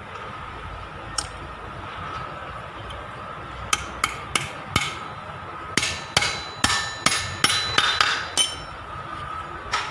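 Hammer striking a metal tubular drift to drive a ball bearing onto the hub of a Kubota L1802DT front-axle bevel gear. A few single taps, then a quick run of about eight ringing metallic strikes, roughly two or three a second.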